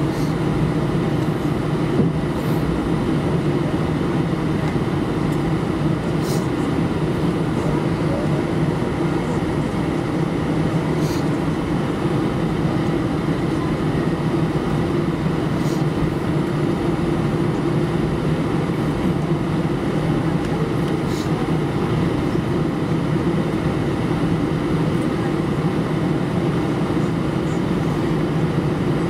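Steady low drone inside the cabin of an Airbus A319-112 taxiing with its CFM56 engines at idle, with a few faint light ticks.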